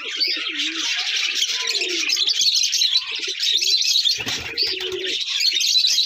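Domestic pigeons cooing, once in the first second or so and again about four seconds in, over the steady high chirping of many small cage birds.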